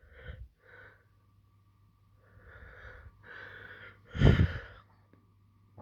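A person breathing close to the phone's microphone in soft puffs, with one much louder breath blowing on the microphone about four seconds in.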